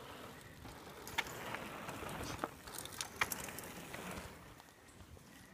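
Mountain bike rolling over a dirt trail: tyre noise on dirt with scattered sharp clicks and knocks from the bike, the loudest about a second and three seconds in, fading near the end.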